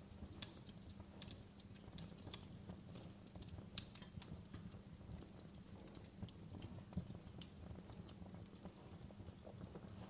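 Fire crackling: irregular sharp pops and snaps over a low steady rumble, with two louder pops about four and seven seconds in.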